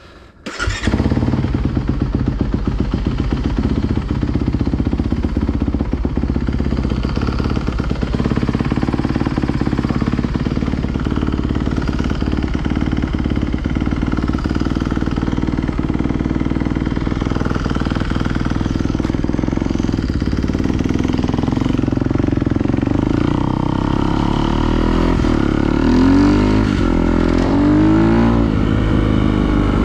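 A vehicle engine running steadily, cutting in abruptly about half a second in, its pitch rising and falling a few times near the end.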